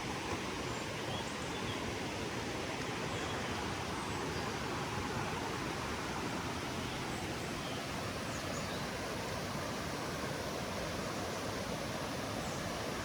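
Steady rain falling in a forest, an even hiss at a constant level.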